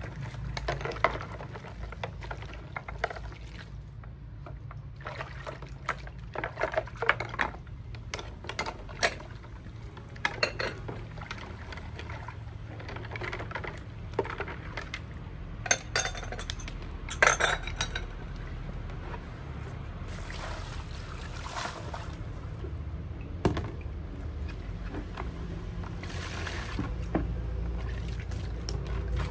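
Ceramic plates and bowls clinking against each other and the plastic basin while dishes are washed by hand, with water sloshing and splashing. Sharp clinks come in scattered clusters, busiest in the first two-thirds, over a low steady rumble.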